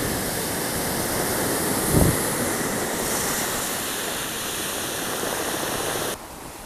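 Ocean surf breaking and washing over a stony shoreline, a steady rushing wash, with one low thump about two seconds in. The sound drops away suddenly near the end.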